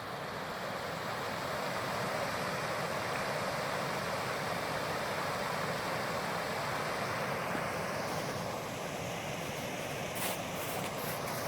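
Meltwater creek in spring flood, flowing like a river: a steady, even rush of water. A few light clicks come about ten seconds in.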